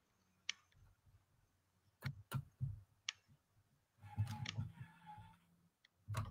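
Faint, scattered clicks and taps from handling at a computer desk, a dozen or so spread out, with a clustered run of them about four seconds in and near quiet between.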